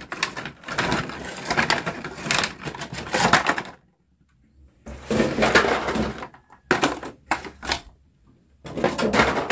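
Clear plastic packaging and a cardboard box crinkling and crackling as a toy bus is unpacked, in several spells of handling with a pause of about a second near the middle.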